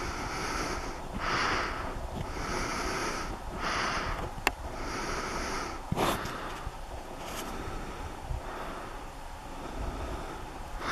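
A person breathing close to the microphone in regular, hissy breaths about every second and a bit, fainter in the second half, over a low wind rumble. A sharp click comes about four and a half seconds in, and another at six seconds.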